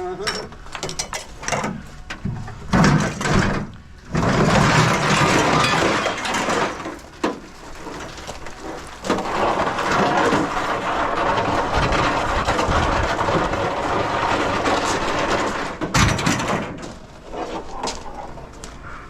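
Scrap metal being thrown and shifted into a load: a run of sharp clanks and knocks, then about twelve seconds of continuous rough scraping and clatter, with a few more knocks near the end.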